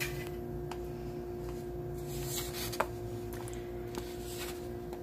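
Faint, steady room hum with a few light taps and clicks as sliced black olives are dropped onto a pizza on a paper plate.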